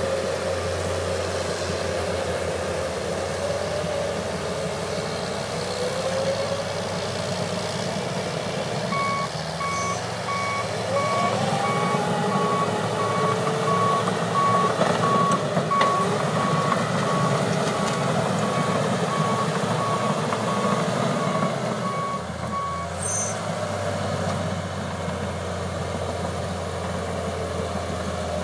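John Deere 700H bulldozer's diesel engine running under load, rising in pitch about eleven seconds in. Its backup alarm beeps steadily from about nine seconds in to about twenty-three seconds in while the dozer reverses.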